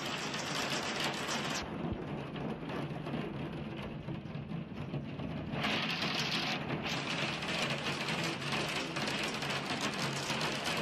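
Hailstorm: hailstones pelting a glass roof and the ground, a dense, continuous clatter of countless small hits. The sound thins out about two seconds in and grows full again near six seconds.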